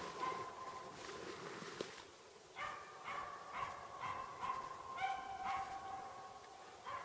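Finnish spitz barking in quick repeated barks, about two a second, with a brief lull about two seconds in: the steady bay of a tree-barking bird dog marking forest game.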